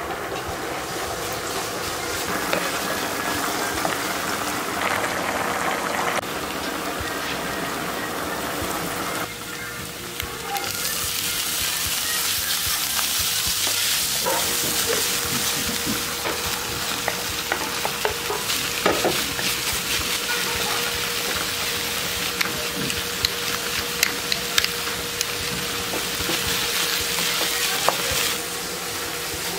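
Minced meat, onion and sliced hot dogs sizzling in a nonstick frying pan while being stirred with a wooden spatula, with scattered scraping clicks. The sizzle is moderate at first, grows much louder about ten seconds in, and drops back near the end.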